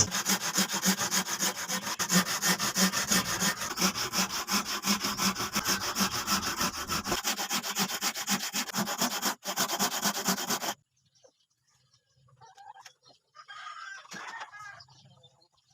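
Rapid, even back-and-forth rubbing strokes of an abrasive tool on wood, stopping abruptly about eleven seconds in.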